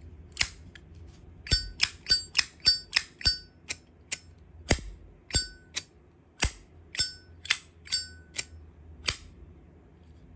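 Zippo windproof lighter's metal lid being flicked open and snapped shut over and over: about twenty sharp metallic clicks, many with a brief bell-like ring, faster in the first few seconds, then more spaced out.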